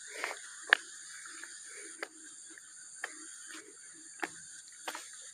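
Footsteps through grass with soft irregular rustles, sharp clicks about once a second, and a steady high insect drone behind.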